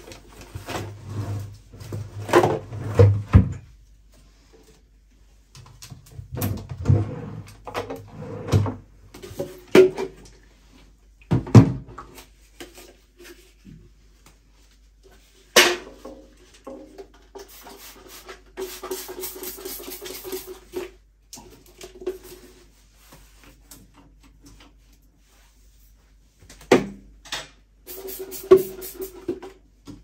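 Plastic cleaning bottles and a cloth being handled at a bathroom sink and shelf: scattered knocks, clicks and clatters with rustling in between, and a few quiet gaps.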